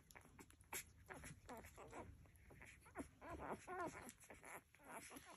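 Three-day-old Labrador puppies squeaking and grunting faintly, many short pitched calls, with small clicks as they nurse.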